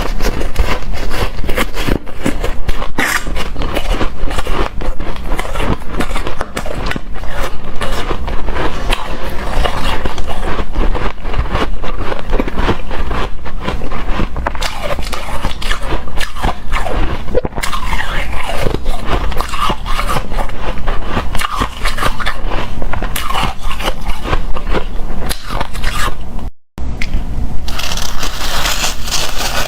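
Close-miked crunching and chewing of hard, frosty shaved ice in big bites, with scraping as the ice is scooped: a dense run of crisp, crackling crunches. The sound cuts out completely for a moment near the end.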